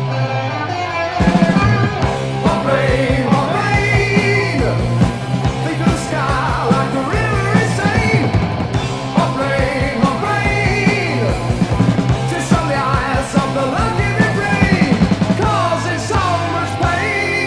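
New Wave of British Heavy Metal band recording: a lead vocal sung over electric guitar, bass and drums. The drums and full band kick in about a second in, with the voice entering shortly after.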